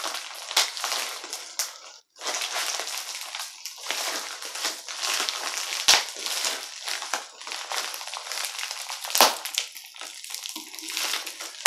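Plastic mailer package being crinkled, pulled and torn open by hand: continuous crackling rustle with sharp snaps, pausing briefly about two seconds in.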